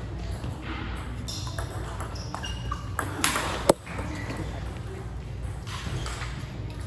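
Table tennis rally: the celluloid ball clicking off the paddles and table, with a few brief high squeaks and a single loud, sharp knock a little past halfway through, over a steady low hum of the hall.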